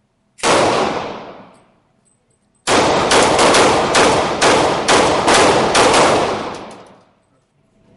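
Gunshots: a single shot, then about two seconds later a quick string of about ten shots at roughly three a second, ringing out after the last.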